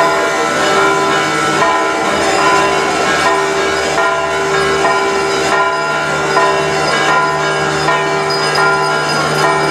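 Church bells ringing continuously, many overlapping tones struck again and again with no pause.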